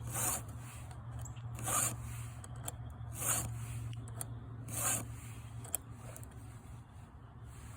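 Chainsaw file rasping across a cutter tooth of a .325 semi-chisel chain: four separate strokes, about a second and a half apart.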